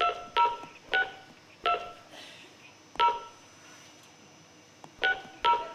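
Telephone keypad tones from a phone built into a shoe, dialled one key at a time: about seven short two-tone beeps at uneven intervals, with a pause of about two seconds in the middle.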